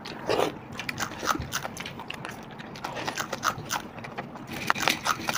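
Close-miked eating sounds of two people eating pakhala bhata, fermented watered rice, by hand: irregular wet chewing, lip-smacking and squelching as the rice is mixed with the fingers.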